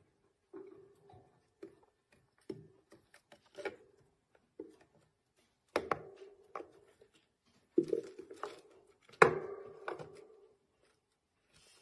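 A hamster handling a stick of wood in its cage, knocking it against the plastic house and the wire: irregular hollow knocks and clatter, with the loudest strikes in the second half.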